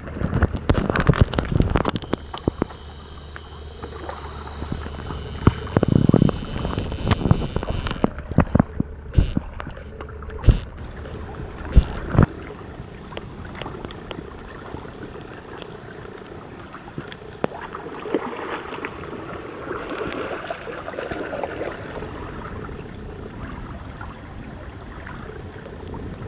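Water gurgling and rushing along the hull of a Hobie Tandem Island sailing trimaran kayak under way, with wind on the microphone and a few sharp knocks about a third of the way in.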